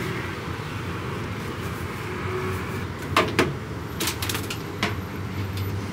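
Clothes and a plastic laundry basket being handled while laundry is loaded into a top-loading washing machine, with a few sharp knocks a little over three seconds in and again around four to five seconds, over a steady low hum.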